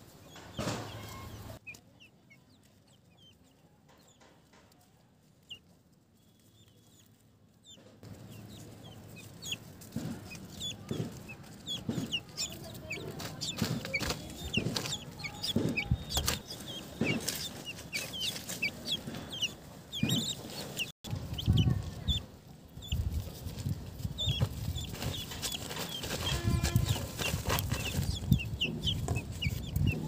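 Young guineafowl (keets) calling with many short, high peeps, quiet for the first several seconds and busy from about eight seconds in. Low knocks and rustling run under the calls.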